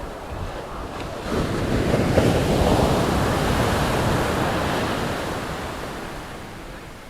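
Ocean wave breaking and washing in: a rush of surf that swells about a second in, then slowly fades away, over a low rumble of wind on the microphone.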